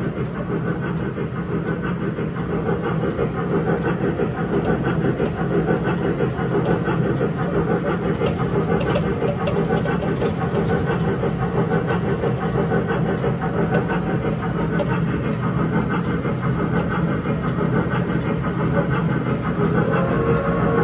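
Electric mall train running along at a steady pace, a continuous low rumble of motor and wheels, with a few light clicks about halfway through.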